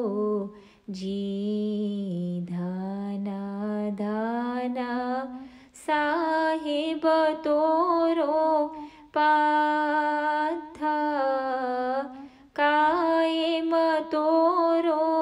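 A woman's voice singing a ginan, an Ismaili devotional hymn, unaccompanied, in long held phrases with short breaks between them. The melody moves to a higher pitch about six seconds in.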